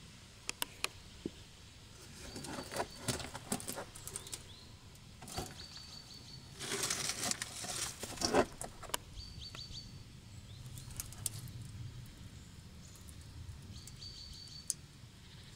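Caked dirt being scraped and picked by hand out of the rusted inner lip of a Škoda Octavia front fender, giving crumbly scratching and scattered clicks. The loudest part is a dense burst of scraping and rustling about seven to nine seconds in.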